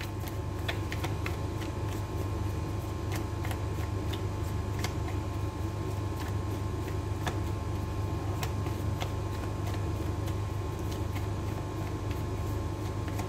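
Tarot deck handled and shuffled by hand: scattered light snaps and ticks of cards against each other, over a steady low hum.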